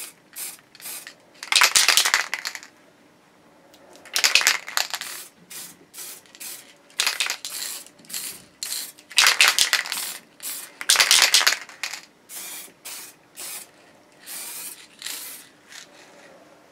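Aerosol spray paint can hissing in repeated bursts as coats of paint go onto a guitar body: about five longer sprays of roughly a second each, with many short puffs between them.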